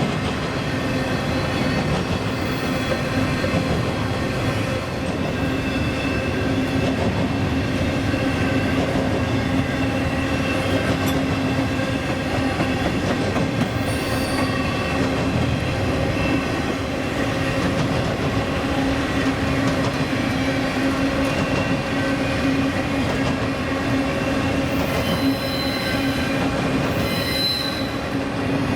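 A train rolling past on the rails, a steady drone with squealing wheels; sharper, higher wheel squeals come in near the end.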